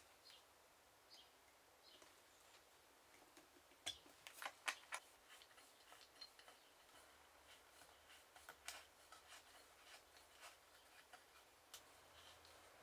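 Faint clicks, taps and light scratching from hand work on a leather-covered book, with a short cluster of sharper clicks about four to five seconds in. In the later part a fine point is worked into the leather, giving small scratching ticks.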